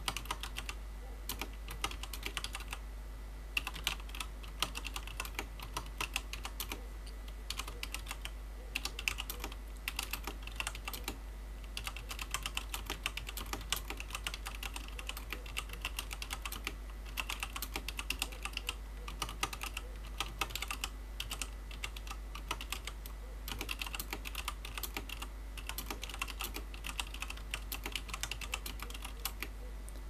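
Touch-typing at about 50 words a minute on a WASD Code v2 mechanical keyboard with tactile Cherry MX Clear switches: a rapid run of key clacks, broken by a few brief pauses between bursts.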